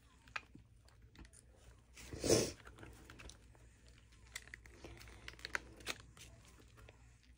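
Silicone mold being flexed and peeled by hand off a cured epoxy resin piece: faint crackles and small clicks, with one louder half-second rasp about two seconds in as the silicone pulls away.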